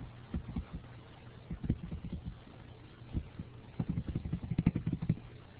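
Faint, irregular low taps and knocks, more frequent about four seconds in, over a steady low electrical hum, heard through a narrow-band online-class microphone.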